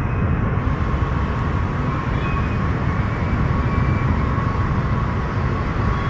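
Jet engines of an Ilyushin Il-76, a four-engine turbofan cargo aircraft, running loudly: a steady deep rumble with a thin, steady whine above it.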